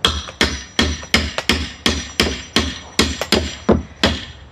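Hammer striking deck boards in a quick, steady run of about a dozen blows, roughly three a second, each blow ringing briefly.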